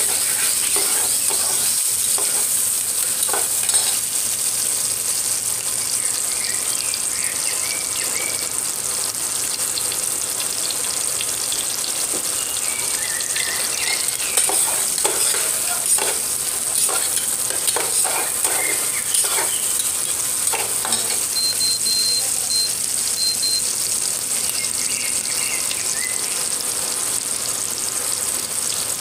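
Onions and potato pieces sizzling steadily in hot oil in a pressure-cooker pot, with a spatula stirring and scraping against the pot at intervals.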